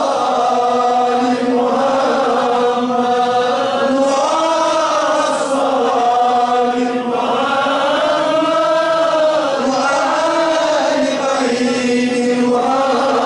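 A man's voice chanting a supplication (dua) in long, slow melodic phrases. The pitch rises and falls over held notes without break.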